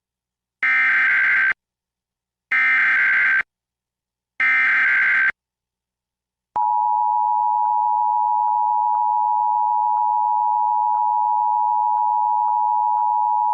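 Emergency Alert System Required Monthly Test tones: three short bursts of SAME digital header data, about a second long and a second apart, carrying the coded alert. Then the steady two-tone EAS attention signal starts about halfway through and holds, announcing that an alert message follows.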